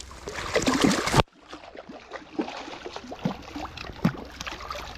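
Creek water running and splashing around a hooked trout being played toward the net, with scattered small knocks. The sound drops off abruptly about a second in and then carries on quieter.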